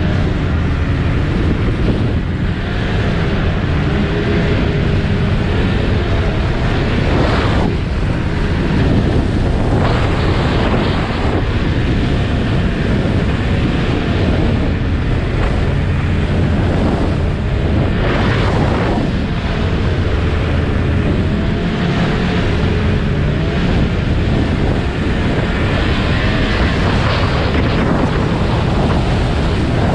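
Snowmobile running at speed, its engine a steady drone whose pitch wavers up and down a little, under heavy wind noise on the microphone that swells in several gusts.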